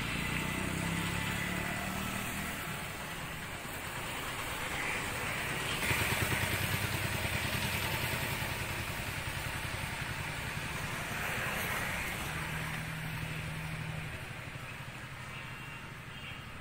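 Road traffic: motor vehicle engines running and passing, with a low engine hum near the start and again about two-thirds of the way through, over steady street noise.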